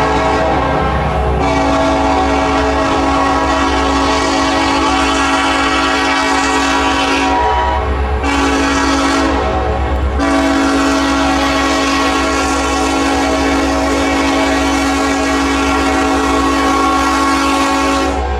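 Union Pacific freight locomotive's air horn sounding a grade-crossing signal: a long blast, a short one, then a long held blast that stops near the end, over the low rumble of the diesel engines.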